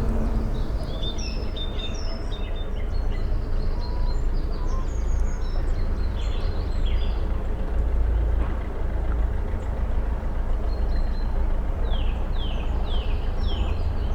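Woodland birds calling and singing, with scattered high chirps and short phrases throughout and a run of four quick falling calls near the end, over a steady low rumble.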